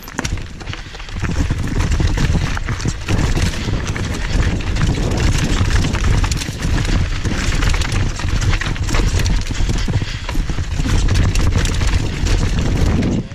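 Mountain bike riding fast down a rocky, loose-gravel trail: tyres crunching over rock and stones, with the bike rattling and clattering over the bumps under a constant low rumble, louder from about a second in.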